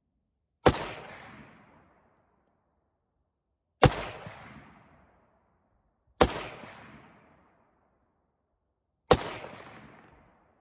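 PSL-54C semi-automatic rifle in 7.62x54R firing four single shots a few seconds apart, each sharp report trailing off in an echo over about a second.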